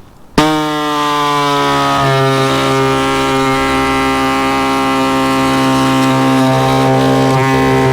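Pneumatic air saw starting abruptly and running steadily while cutting a hole through fiberglass; its pitch settles a little lower about two seconds in.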